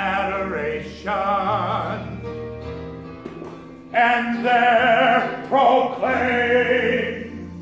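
A man singing solo in an operatic style with strong vibrato, over steady held low accompaniment notes. The voice swells into a loud, high, sustained phrase about halfway through, then fades toward the end.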